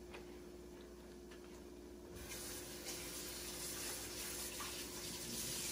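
Kitchen tap turned on about two seconds in, then water running steadily.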